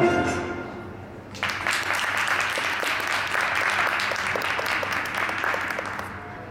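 Audience applause and clapping that breaks out about a second and a half in, just after the routine's music dies away, and slowly tapers off.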